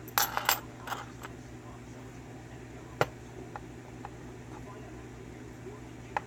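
Small metal clicks and clinks of keys and lock pins being handled: a quick cluster at the start, a few scattered ticks, one sharp click about three seconds in, and more clicks right at the end, over a steady low hum.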